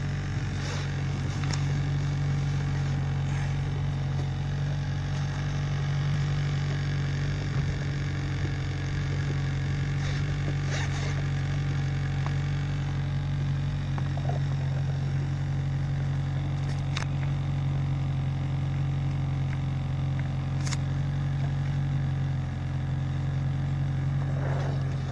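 Yamaha 50 outboard motor running at a steady speed, a constant low drone, with a few light clicks now and then.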